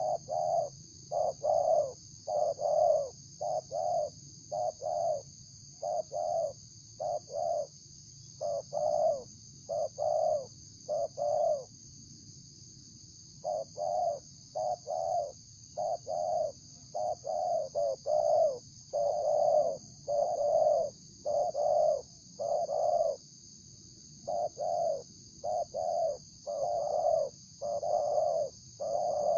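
Spotted dove (tekukur) cooing over and over in short, rhythmic coos, with two brief pauses between runs of calls.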